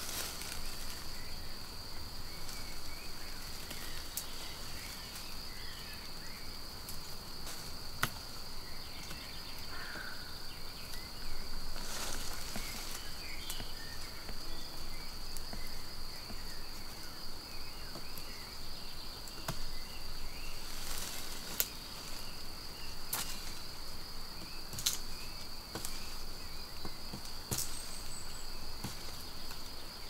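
A knife cutting a fresh hazel stick at its base: scattered sharp clicks and cracks, louder twice, about a third and two-thirds of the way through. Behind it runs an insect's steady high-pitched trill, with faint bird chirps.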